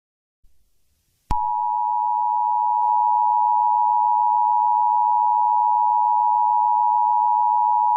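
Emergency alert attention signal: a loud, steady two-tone electronic beep that switches on suddenly about a second in and holds without change.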